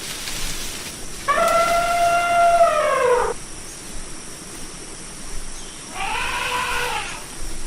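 Elephant trumpeting: two calls, the first lasting about two seconds from a second in and dropping in pitch at its end, the second shorter, near the end.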